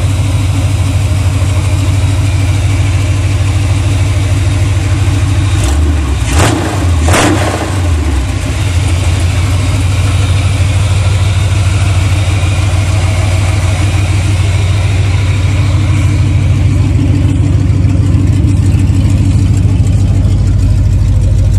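Chevrolet 454 big-block V8 idling loudly and steadily on open headers, with no exhaust pipes or mufflers fitted yet. Its sound wavers briefly about six to seven seconds in.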